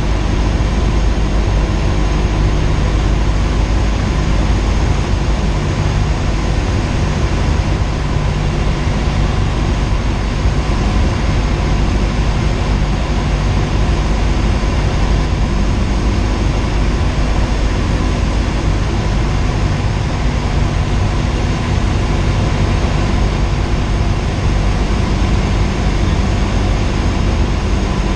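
Cessna 172R's four-cylinder Lycoming engine and propeller running steadily in flight, a loud, even drone heard from inside the cockpit.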